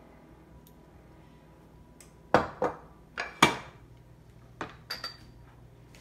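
Glass baking dishes and a plastic oil bottle being set down and shifted on a stone countertop. There are four sharp clinks and knocks between about two and three and a half seconds in, then three lighter ones near the end.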